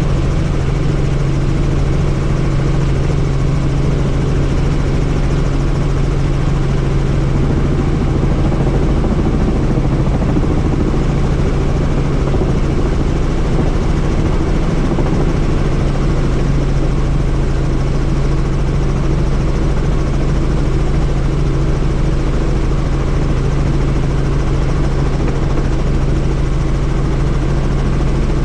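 Helicopter in flight, heard from on board: a loud, steady drone of rotor and engine with a constant low hum and an even rush of noise, unchanging throughout.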